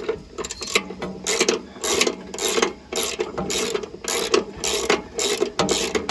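Hand ratchet wrench being worked back and forth, its pawl clicking in quick strokes about twice a second.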